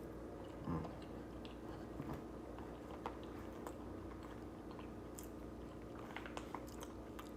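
Close-up chewing while eating salmon, with scattered small clicks of a fork and a few soft mouth noises over a faint steady hum.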